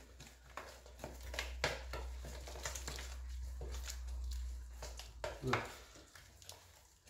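A hand squishing and mixing a runny buttermilk marinade with chopped onion in a glass bowl: irregular wet squelches and splashes. A low steady hum runs underneath for about the first five seconds.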